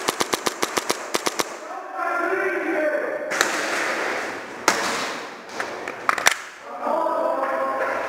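Airsoft gunfire: a rapid full-auto string of sharp shots, about seven a second, that stops after about a second and a half, followed by a few scattered single shots. Raised, shouted voices come in twice between the shots.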